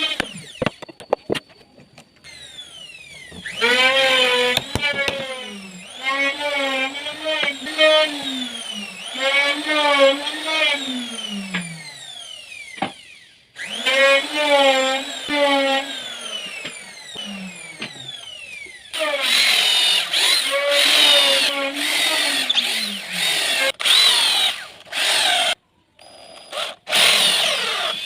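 Drum sander's electric motor running in repeated spells while sanding wood. Its pitch swells and sags over each spell of a couple of seconds, with short breaks between.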